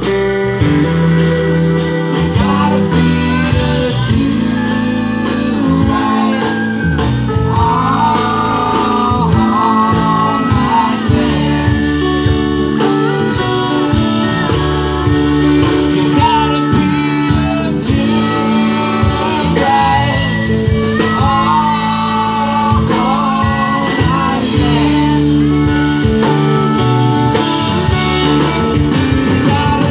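Live band playing on an outdoor stage, with guitars, and a sung or lead line wavering above them.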